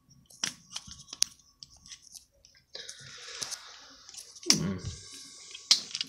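Handling noise of a phone camera being moved about one-handed: scattered sharp clicks and ticks, a stretch of hissy rubbing near the middle, and a heavier bump about four and a half seconds in.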